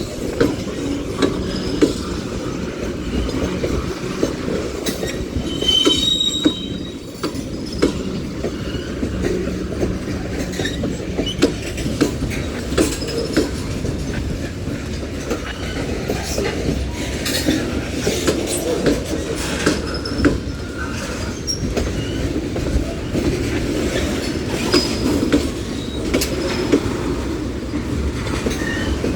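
Freight train cars rolling past at track side: a steady rumble of steel wheels on rail with irregular clanks and clicks from the wheels and couplers. A brief high wheel squeal comes about six seconds in.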